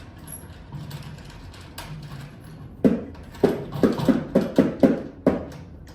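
Drum kit parts being knocked and handled during assembly: a quiet start, then from about three seconds in a quick run of about nine hollow knocks, roughly three a second.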